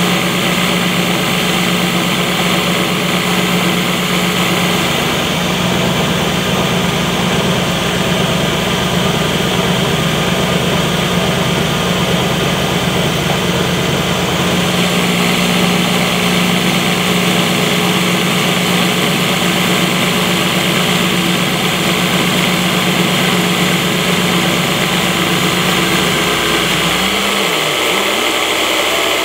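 CNC-converted TM20VL/G0704 benchtop mill with a belt-drive spindle, cutting aluminium with an end mill: a steady machining hum over a dense hiss from the cut and flying chips. The hum's pitch wavers and dips briefly near the end.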